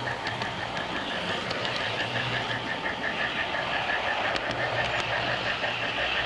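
Garden-railway model train running along its track, heard from on board: a fast, even pulse of about five beats a second over a low steady hum.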